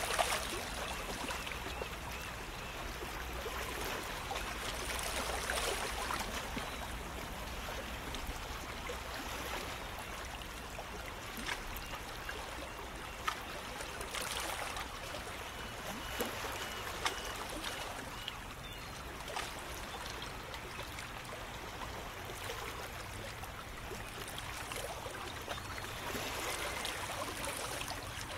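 Small waves lapping and trickling around shoreline rocks. The wash gently swells and fades every several seconds, with a few small splashes.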